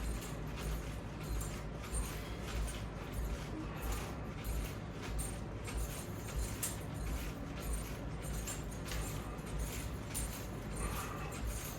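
Rhythmic exercise noise from resistance-band pulls with semi-squats: short clicks and low thuds from the band and strap hardware and footwork, repeating about one and a half times a second.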